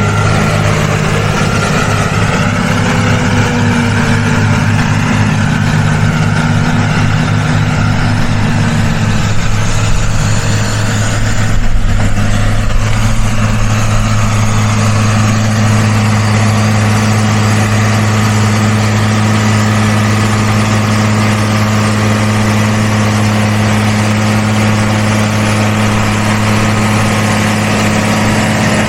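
Diesel farm tractor engine running steadily under load while ploughing, a deep even drone. The engine pitch shifts slightly in the first few seconds, and there is a brief swell in loudness partway through.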